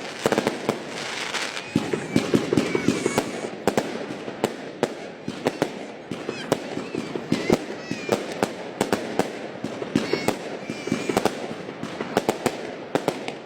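Fireworks display: a rapid, irregular series of sharp bangs and pops from bursting shells, several a second, over a continuous crackle.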